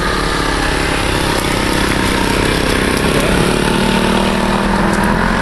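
Twin Saito 82 four-stroke glow engines of an RC CL-415 flying-boat model running steadily as it taxis on water. The right engine runs about 500 rpm faster than the left.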